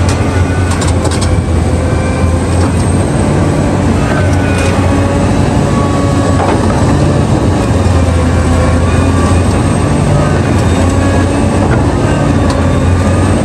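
Heavy diesel mining machinery (the excavator and haul trucks) running steadily under load: a continuous deep engine hum that wavers slightly, with a few faint knocks.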